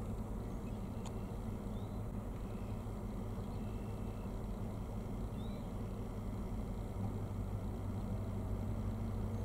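Steady low hum that grows a little louder about seven seconds in, with a few faint, short, rising chirps from small birds.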